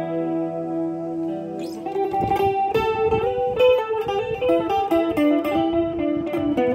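Electric guitar played through a DigiTech RP500 multi-effects pedal with chorus and delay switched on. A held chord rings out, then about two seconds in comes a run of picked single notes.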